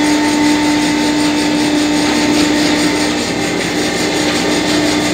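Motor-driven workshop machine running steadily, a constant hum over an even mechanical noise.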